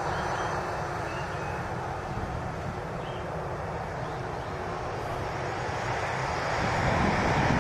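A Lockheed C-130 Hercules's four turboprop engines running with propellers turning as the aircraft moves on the runway ahead of takeoff. The sound grows louder near the end.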